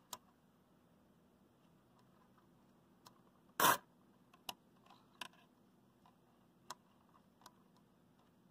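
A short hiss of aerosol contact cleaner (DeoxIT) sprayed through an extension straw into the amplifier's balance control, about halfway through, with a few light clicks and taps of handling around it.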